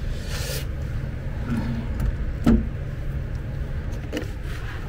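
Hand tools being handled on a hard floor: a brief rustle, a few light metal clicks and one sharper knock about two and a half seconds in, over a steady low hum.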